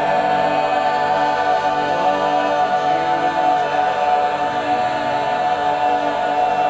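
Mixed-voice teenage a cappella group holding one long, steady chord near the end of a song, with the final word still to come.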